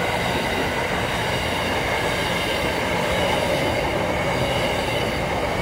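Empty container flat wagons of a freight train rolling past: a steady, loud rumble of steel wheels on the rails, with a faint high-pitched squeal from the wheels.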